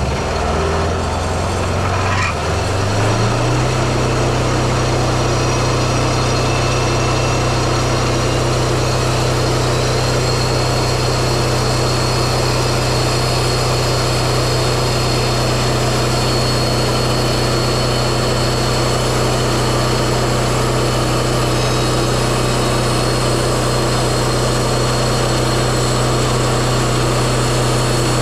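Kohler 17 hp diesel engine on a Wood-Mizer LT15 sawmill running; its speed rises over the first few seconds, then it holds a steady pitch.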